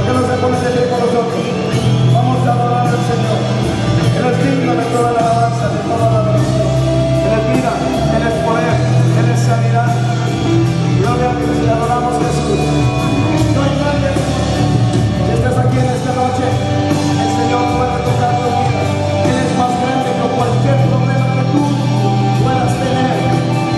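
A band playing a Christian song live, with singing voices over the instruments.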